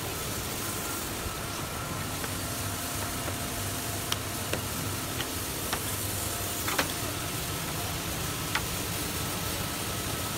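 Wooden compression molding being pried loose and pulled off a fiberglass door's glass panel: a handful of short, sharp clicks and snaps at irregular intervals, the loudest a little past the middle, over a steady background hiss.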